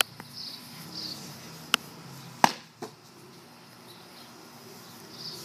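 A barbed-wire-wrapped bat striking a cardboard box: one loud sharp whack about two and a half seconds in, with lighter knocks shortly before and after it. Faint high chirps sound in the background.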